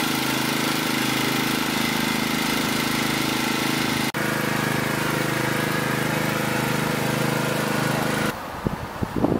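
Small engine running steadily at one constant speed, with a momentary break about four seconds in. It cuts off abruptly near the end, followed by a few soft knocks.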